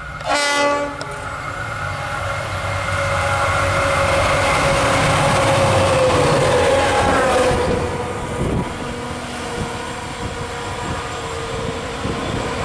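Two V/Line N class diesel-electric locomotives running light: a short horn blast about half a second in, then the engines growing loud as they pass close by. Their whine drops in pitch as they go past about seven seconds in, and the sound then eases off.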